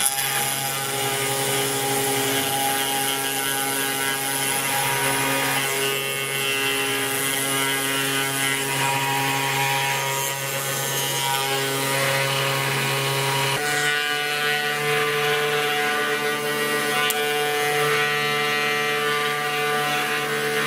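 Home-built mini CNC router milling thin plywood with a 3 mm bit: the spindle runs steadily while the axis motors drive the cut, giving a steady mix of whining tones over cutting noise. The pitch of the tones shifts suddenly about two-thirds of the way through, as the machine changes its movement.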